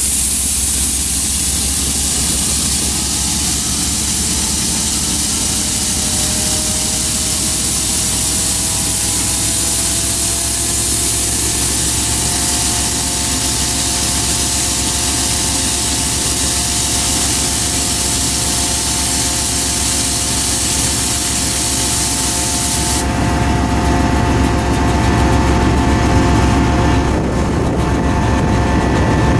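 Diesel locomotives idling with a steady low drone under a loud hiss that cuts off suddenly about two-thirds of the way through. From about midway, a few steady whining tones sound over the drone.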